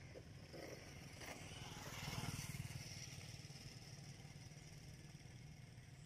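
A motor vehicle passing, faintly: its engine sound swells to its loudest about two seconds in, then fades away over a low, steady hum.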